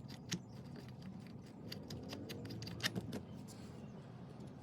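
Quiet, scattered small clicks and clinks of metal hardware or tools being handled, bunching up in the middle.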